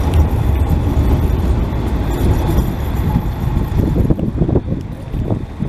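Articulated low-floor tram passing at street level, a steady rumble mixed with road traffic. The high hiss thins out about four seconds in.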